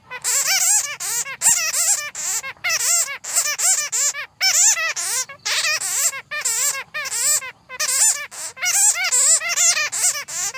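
Bats chattering: a rapid stream of shrill squeaking calls with a fast warbling pitch, coming in bursts broken by short gaps.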